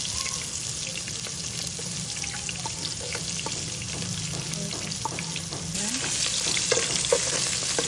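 Diced red onions sizzling in hot cooking oil in a pan, with small spattering ticks, stirred with a metal spoon that clicks against the pan. The sizzle grows louder about six seconds in.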